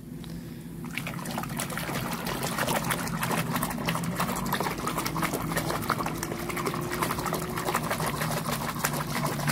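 Water sloshing and splashing in a plastic basin of soapy water as a hand scrubs a toy jet under the surface. The splashing is a dense run of rapid small splashes that picks up about a second in.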